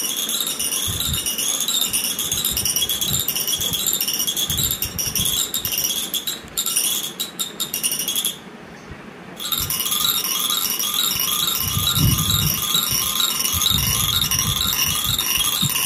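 A baby's spinning musical toy playing a tinkling tune of repeating high notes. The tune breaks off for about a second midway, then starts again. A few soft low thuds come in the second half.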